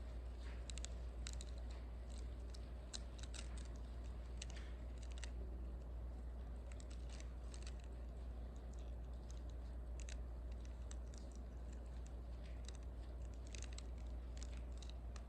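Plastic Ziploc bags and wrapped communion elements being handled and opened: irregular small crinkles and clicks over a steady low hum.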